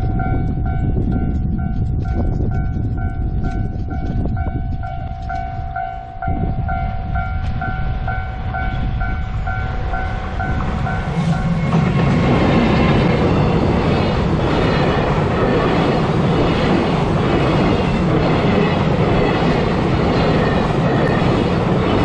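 Japanese level-crossing bell ringing about twice a second over the low rumble of an approaching train. About twelve seconds in the bell drops out as a JR Freight EF210 electric locomotive passes, followed by container wagons clattering over the crossing and rail joints.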